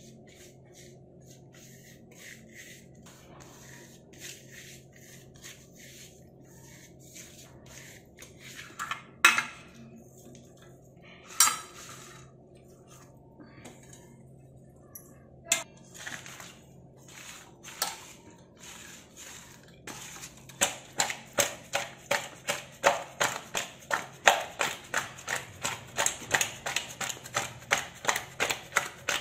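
Spices being mixed by hand on a stainless steel plate, with soft scrapes and a few sharp clinks of steel dishware. About two-thirds of the way in this changes to fish pieces being tossed and rubbed by hand in a stainless steel bowl: quick, even wet slaps and clinks against the steel, several a second.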